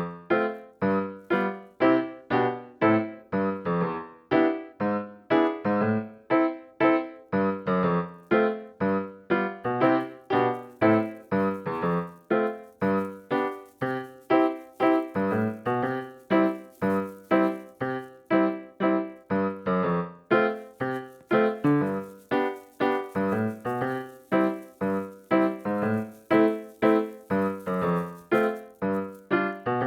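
Background piano music: a steady run of single struck notes, about two a second.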